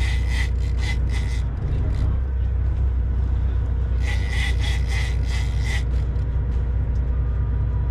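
Heavy conventional fishing reel cranked hard against a fish, giving even rasping pulses about three a second in two spells, one at the start and one from about the middle. Under it a boat engine runs with a steady low rumble.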